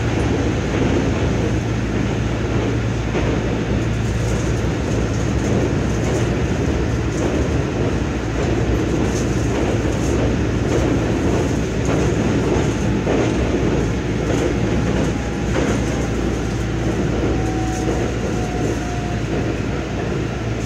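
Inside a Tokyo Metro 16000 series train running between stations: steady rolling rumble with a faint click about once a second from the rail joints, over the constant hum of the car's air conditioning. A faint whine slides slowly down in pitch in the second half.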